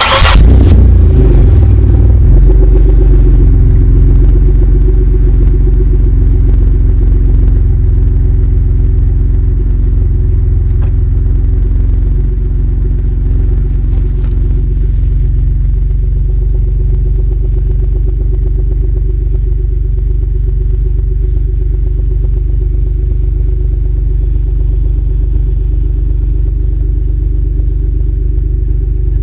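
2003 Chevrolet Impala LS's 3.8-litre 3800 Series II V6 starting up through a high-flow cat, resonator and dual Flowmaster mufflers. It flares briefly on catching, then settles into a steady, deep idle.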